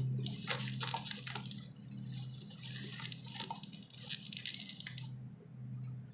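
A hand rummaging inside a Lay's potato chip bag, the crinkly bag rustling in quick irregular crackles that stop about five seconds in. A steady low hum runs underneath.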